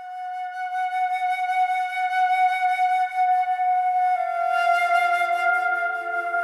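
Background music: a long, sustained flute-like note with a slight wavering, swelling in from quiet; about four seconds in it steps slightly lower and lower held notes join beneath it.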